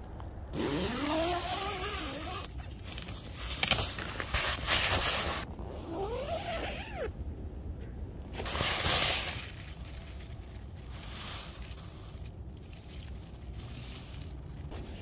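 Tent door zipper being pulled in a few strokes, two of them with a buzz that rises and falls in pitch, among loud rustling and scraping of tent fabric.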